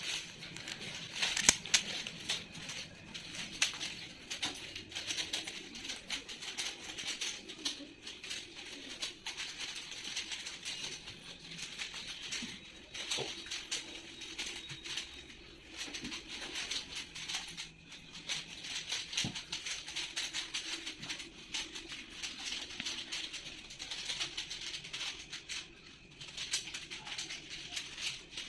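Several 3x3 Rubik's cubes being turned fast by hand: a steady stream of rapid, overlapping plastic clicks and clacks.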